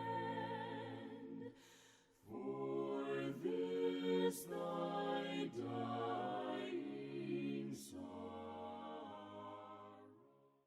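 Soft a cappella hymn singing by several voices in harmony, held notes moving from chord to chord. There is a brief break between phrases about two seconds in, and the singing fades out near the end.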